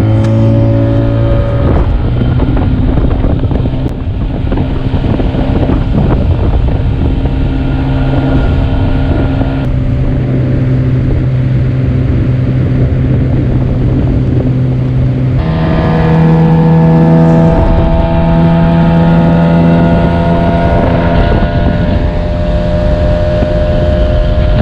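Boat's outboard motor running at speed under way, with the engine note stepping up to a higher speed about fifteen seconds in.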